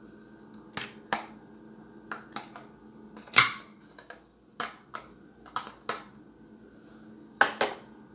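About ten sharp clicks or taps at irregular intervals, the loudest about three and a half seconds in, over a faint steady hum.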